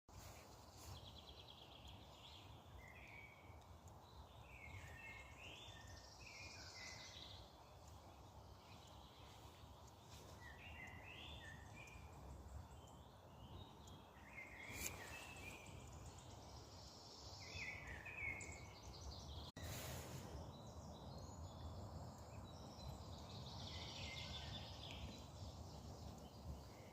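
Forest birds singing faintly, short song phrases repeating every few seconds over a steady low background hum.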